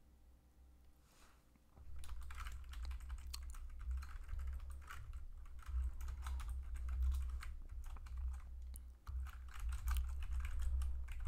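Rapid typing on a computer keyboard, starting about two seconds in, with a short pause near nine seconds.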